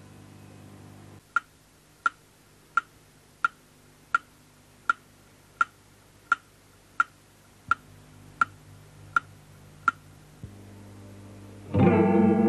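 Slow, even ticking, about one tick every 0.7 seconds, thirteen in all, like a clock. Near the end, loud music on mallet percussion starts suddenly.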